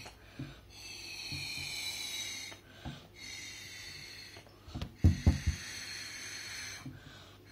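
A child blowing hard into slime to make a bubble: three long breathy blows with pauses between them, and a quick cluster of low thumps about five seconds in.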